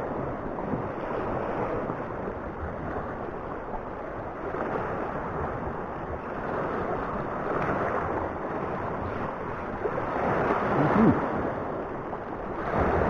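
Sea surf washing and breaking over a shallow coral-rock shoreline: a steady wash that swells louder a couple of times in the last few seconds.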